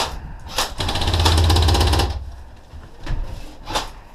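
Airsoft electric gun firing a rapid full-auto burst of about a second and a half, followed by a few single sharp snaps.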